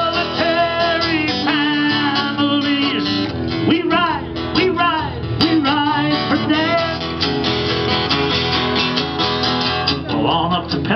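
Acoustic guitar strummed through a stage PA, with a man's singing voice over it in places, sliding in pitch a few seconds in and again near the end.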